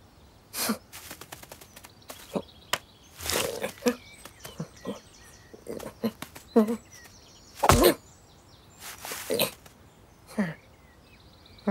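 A cartoon cat's voiced sound effects: short sniffs and strained grunts and mews as it lifts a stone, with one heavy thud a little past halfway. Faint birdsong chirps behind.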